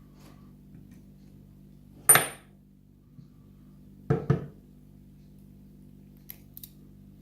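Small metal parts and tools knocking on a work surface while a pin-tumbler lock is taken apart: a sharp metallic clink with a brief high ring about two seconds in, a double knock about four seconds in, and a few faint light ticks near the end, over a steady low hum.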